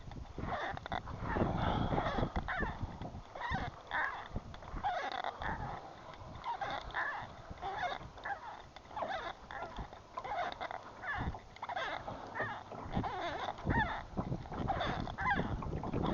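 Many short animal calls, irregular and overlapping, throughout.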